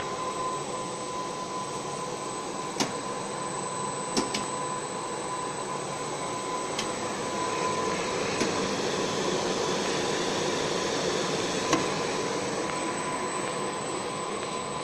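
TPU elastic tape extrusion line running: a steady machine hum with a constant mid-pitched whine and a fainter high whine over it. A few short sharp clicks are scattered through it.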